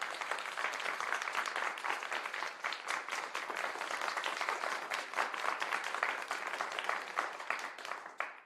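Crowd applause: a dense, even patter of many hands clapping, fading out at the very end.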